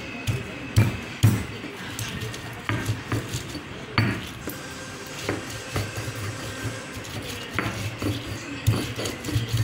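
Stone roller of an ammi kal (flat Indian grinding stone) rolled back and forth over the stone, grinding mint, coriander leaves and green chillies to a paste: low grinding strokes with sharp stone-on-stone knocks at irregular moments.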